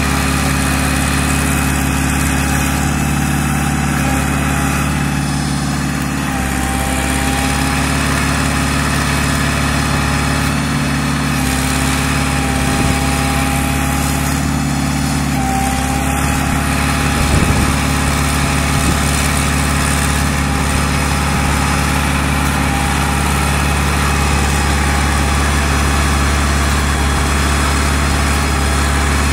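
Diesel engine of an O&K RH6 tracked hydraulic excavator running steadily while the machine digs and works its hydraulics, bogged down in mud. There is one short louder burst about halfway through.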